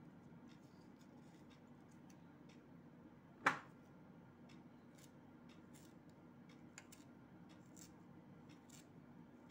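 Kitchen knife cutting through a firm raw green mango held in the hand: faint, crisp clicks as the blade slices, with one sharp knock about three and a half seconds in. A low steady hum underneath.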